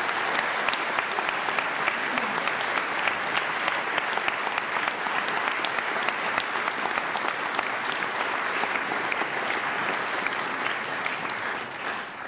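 Large audience applauding: dense, steady clapping that dies away near the end.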